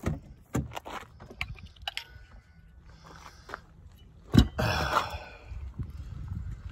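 Footsteps crunching on loose gravel beside a car, with a loud knock from the open car door about four and a half seconds in.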